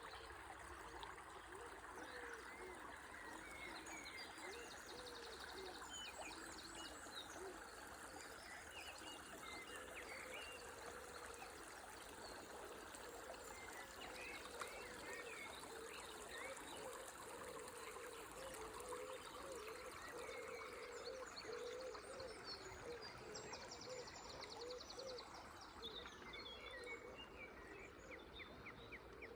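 River water trickling steadily under a dawn chorus of several songbirds chirping and whistling, with a couple of rapid trills.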